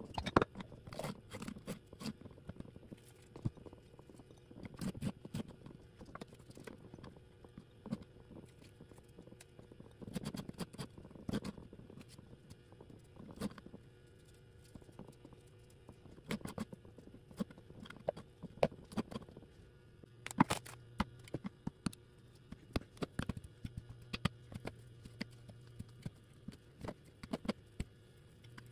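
Curved 5.11 Talon knife blade slicing a green bell pepper into strips, the edge knocking irregularly against a bamboo cutting board in sharp taps.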